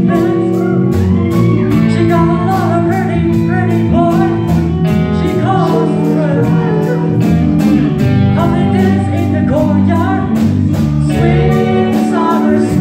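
Live rock band playing: electric guitars and a drum kit keeping a steady beat, with a lead voice singing over them.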